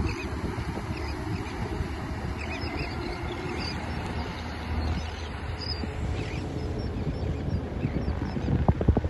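Wind rumbling on the microphone over the distant running of a motorboat's outboard engine, with a few faint bird calls in the first few seconds. A short run of louder gusts or knocks comes near the end.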